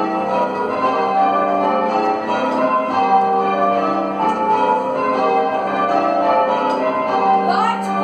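Church bells being rung in changes, full-circle change ringing heard from the ringing chamber below the bells: a continuous run of bell strikes whose ringing tones overlap.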